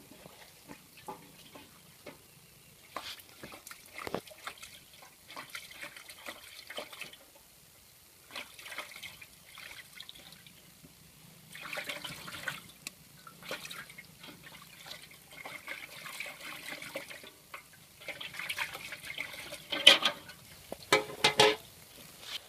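Water splashing and sloshing in a basin in irregular bursts as eggs are washed by hand. A few loud, sharp snaps near the end.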